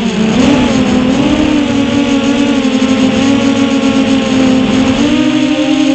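Brushless motors and props of a 6-inch FPV quadcopter (Eachine 2407 1850KV motors, Ethix K2 props) whining, heard from on board. The pitch dips right at the start as the throttle comes off, holds fairly level, then steps up about five seconds in as the throttle is pushed again.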